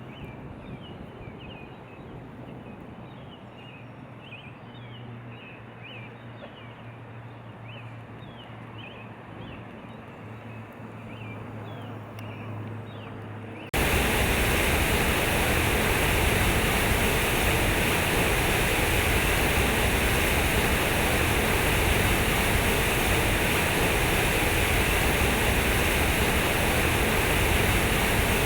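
Birds chirping again and again over a low steady hum. About fourteen seconds in, this cuts abruptly to the loud, steady rush of a waterfall.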